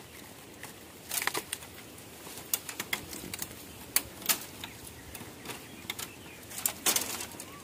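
Dry bamboo stems, twigs and dead leaves crackling and snapping in irregular clicks as a gloved hand pushes into a bamboo clump to pick young shoots. The clicks come in small clusters, loudest about a second in and again near the end.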